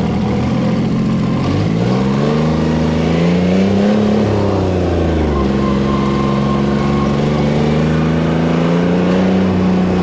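Air-cooled Deutz diesel tractor engine heard from the driver's seat in the cab while driving. The engine speed climbs from about a second and a half in, falls back around the fourth to fifth second, then runs steady with a slight rise near the end.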